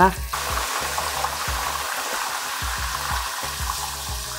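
Raw jackfruit sticks deep-frying in hot oil in a wok, sizzling steadily from a split second in as they hit the oil. Background music plays underneath.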